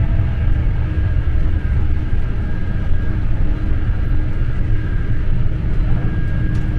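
Avanti West Coast express train running at speed, heard from inside the carriage: a steady low rumble with a faint steady hum over it.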